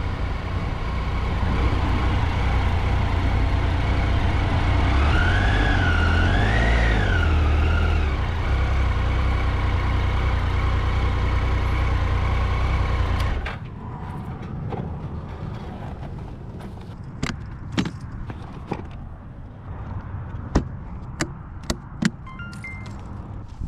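Motorcycle engine running under heavy wind and road noise, with a tone rising and falling twice in the middle. About two-thirds of the way in the engine noise cuts off suddenly, leaving scattered clicks and knocks.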